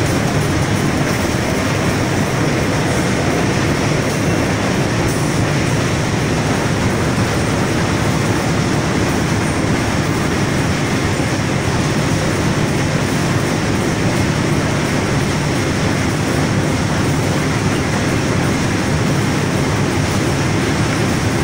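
Corrugated-board sheet stacker and its belt conveyors running, a steady, even machine noise with no breaks.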